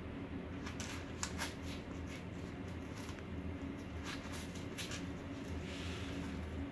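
Kittens pawing and digging in granular cat litter in a cardboard box: a string of short, dry raking scratches over a steady low hum.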